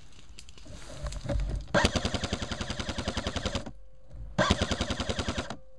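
Airsoft rifle firing two full-auto bursts of rapid, evenly spaced shots, the first about two seconds long and the second just over a second.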